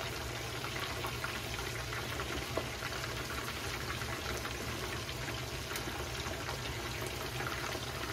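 Chicken karaage deep-frying in a pan of hot oil: a steady sizzle full of small crackles and pops, with one sharper tick about two and a half seconds in.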